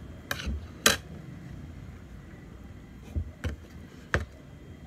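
About five short, sharp clinks and knocks of a spoon and hands against a plate while eating a meal of rice, the loudest about a second in, over a faint steady background hum.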